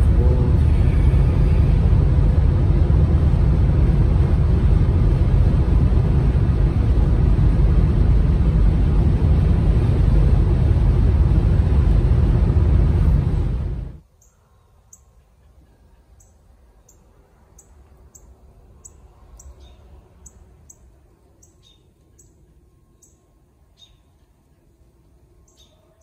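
Steady road and tyre noise inside a car cabin at highway speed, cutting off abruptly about halfway through. Then a quiet backyard where small birds give short, high chirps about once or twice a second.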